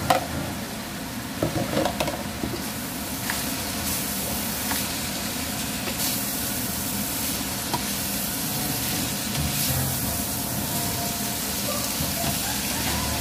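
Carrots and green beans sizzling steadily as they are stir-fried in a hot non-stick pan, with a spatula scraping and clicking against the pan, most often in the first couple of seconds.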